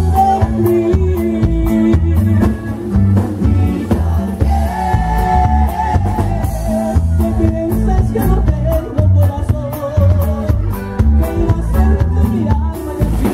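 Live band music with a heavy bass line and a steady drum beat, a held melody line over it, and some singing.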